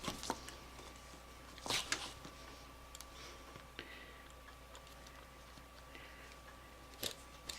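Faint handling sounds of hand-stitching a leather strap: a few short scratches and ticks as the needle and thread are pushed and pulled through the leather, the longest scratch just under two seconds in.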